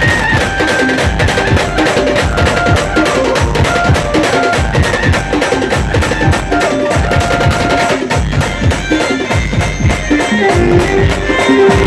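Instrumental Adivasi folk tune played by a village band: fast, dense drum strokes under a melody of short held notes.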